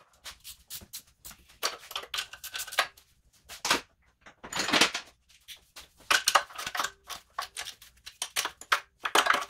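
Metal hand tools working bolts on a Toyota 2AZ engine: irregular metallic clicks and clinks in short clusters.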